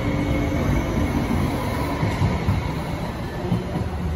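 MTR Light Rail Phase III car pulling away from the stop and running past close by, its wheels rumbling on the track. It grows a little quieter near the end as it moves off.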